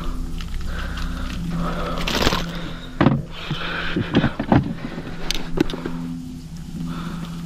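Small electric motor mounted on a kayak humming steadily, with a couple of short breaks. About two seconds in there is a brief hiss, followed by a cluster of clicks and knocks of handling.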